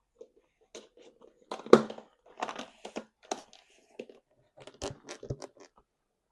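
Close-miked eating: food being torn, crunched and chewed in irregular bursts, the loudest a little under two seconds in.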